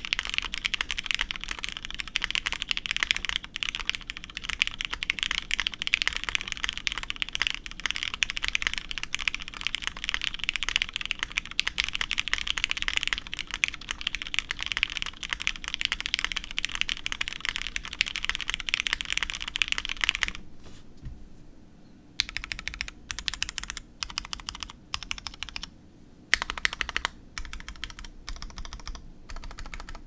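Typing on a mechanical keyboard with lubed Cherry MX Hyperglide Black linear switches, CRP keycaps and an aluminium half plate with foam dampening. The keystrokes come fast and continuous for about twenty seconds, then slow to separate presses with short pauses between them.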